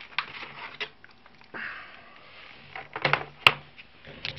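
Clicks and rustles of handling as a laptop's power adapter cable is plugged in, with the sharpest click about three and a half seconds in.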